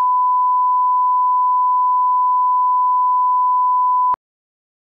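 Steady 1 kHz reference line-up tone, the test tone laid under colour bars at the head of a video master, holding one unchanging pitch and cutting off suddenly about four seconds in.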